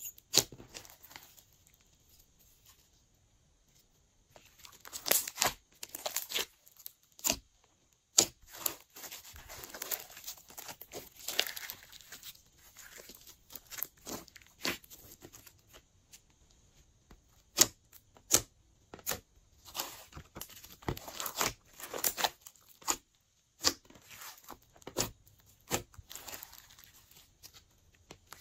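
Glossy slime being squished and stretched by hand, giving irregular sticky clicks, pops and crackles, with a brief lull about two to four seconds in.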